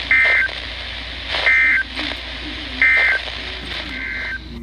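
Emergency Alert System end-of-message data bursts: three short, loud, screechy digital tone bursts about a second and a half apart, closing the warning just read, with a fainter fourth burst near the end. A steady low hum and hiss from the broadcast feed runs underneath.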